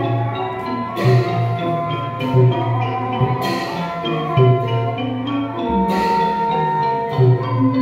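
Thai piphat mon ensemble playing: a busy melody on struck tuned instruments over low drum beats, with bright crashing strikes about every two seconds and a held reedy tone entering near the end.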